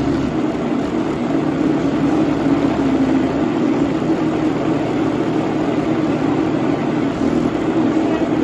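Blender motor running steadily on its low setting, churning a thick sofrito mix of chopped peppers, onions and garlic.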